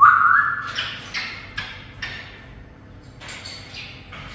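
Parrot giving a loud short rising whistle, then a string of short squawks.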